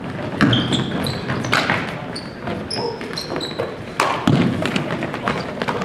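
Basketball game play on an indoor court: a ball bouncing and thudding on the floor, short high squeaks of sneakers on the court, and voices murmuring in the background.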